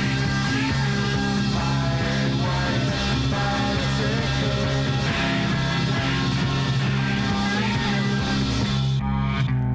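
A 1960s psychedelic rock record playing from a 7-inch vinyl single through a DJ mixer. About nine seconds in, the treble drops out suddenly and the bass and mid-range carry on.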